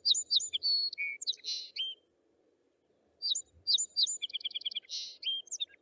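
A songbird singing two phrases of quick, varied high chirps and whistles about a second apart, the second phrase with a fast trill of repeated notes.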